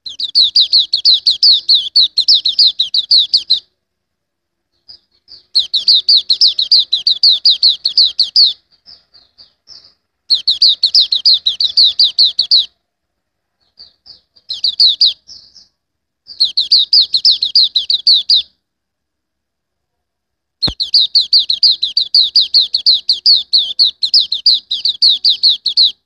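A caged songbird singing a rapid, high chattering trill of about six notes a second, in bouts of a few seconds each with short pauses between.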